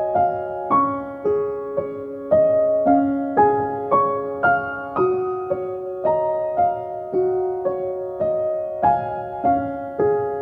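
Soft background piano music: a gentle melody of single notes and chords, each struck and left to fade, about two a second.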